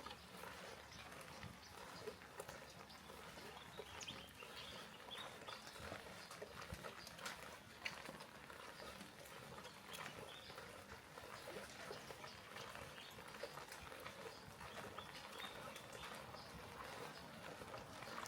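Faint rain ambience: a steady light patter with many scattered drips and taps, and a few brief high chirps.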